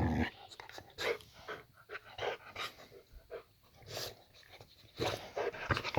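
Boxer dog panting in short, uneven breaths, a little livelier near the end.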